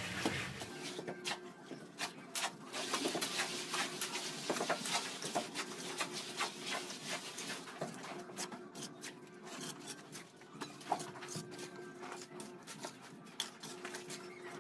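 Steel mason's trowel scraping and tapping mortar on the top course of concrete hollow blocks, a steady run of small scrapes and clicks. A faint held tone comes and goes behind it.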